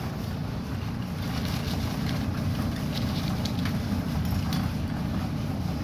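Whirlpool Duet electric dryer running: a steady low rumble of the motor, blower and turning drum, with a few light ticks over it.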